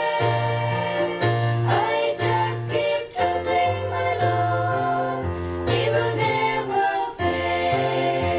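A gospel hymn sung by a group of voices over keyboard accompaniment, with a bass line stepping from note to note.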